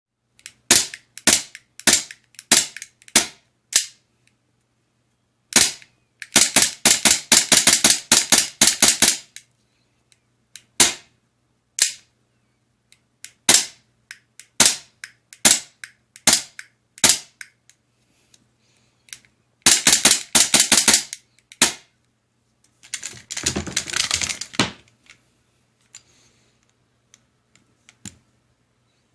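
WE Glock 19 airsoft pistol running on high-pressure air (HPA), firing sharp cracks. It fires six single shots, then a rapid string of shots, then a run of spaced single shots, then two more rapid strings near the end.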